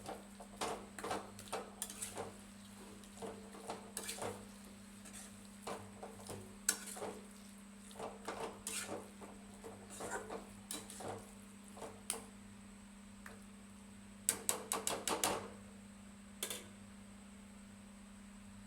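Metal utensils clinking and knocking against cookware in irregular strokes, with a quick run of about half a dozen knocks about three quarters of the way through.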